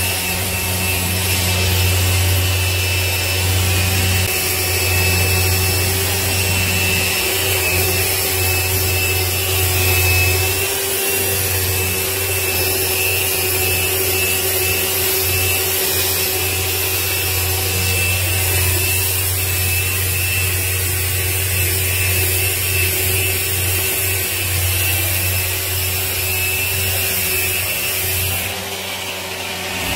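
Electric orbital polisher running steadily on an artificial-marble countertop, a low motor hum and a thin high whine over the hiss of its pad rubbing the surface as the repaired top is buffed. It goes briefly quieter near the end.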